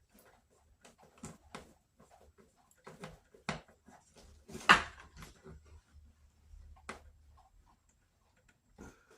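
Scattered clicks and knocks of hands and a tool working on a Kirby vacuum's housing while a screw is fitted, with one sharper knock near the middle.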